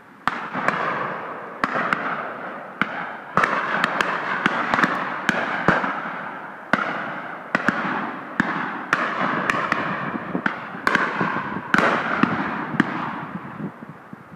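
Several shotguns firing at driven game: about twenty shots at irregular intervals, some in quick pairs, each trailing a long rolling echo. The shooting dies away near the end.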